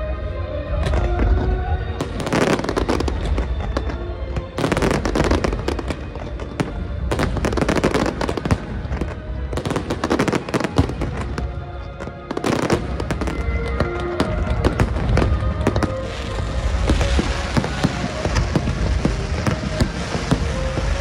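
Aerial fireworks bursting in rapid volleys, with deep booms and a dense crackle toward the end, over music playing throughout.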